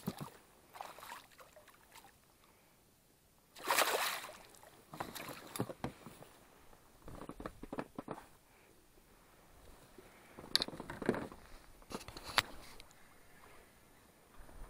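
A hooked pike thrashing at the surface beside the boat and being landed in a net: a series of separate water splashes and sloshes, the loudest about four seconds in, with a short sharp click a little after twelve seconds.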